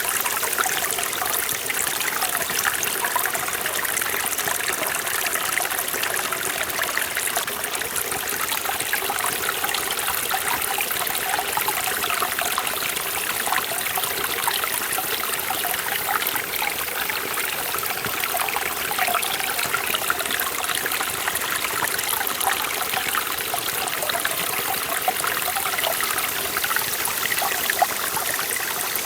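A mountain stream in a forest valley, running steadily over rocks with a constant rush and fine trickling and splashing.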